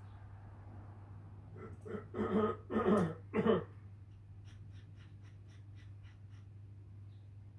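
A man's voice making four quick, non-word vocal sounds over a steady low hum. A run of light clicks follows at about five a second: typing on a laptop keyboard.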